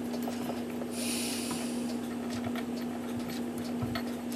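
Faint clicks and a soft knock from handling a grandfather clock movement while its wooden seat board is being removed, over a steady low electrical hum, with a short hiss about a second in.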